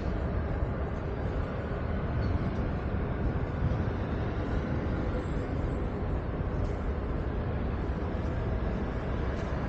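Steady city street noise: a constant low rumble of road traffic, with no single sound standing out.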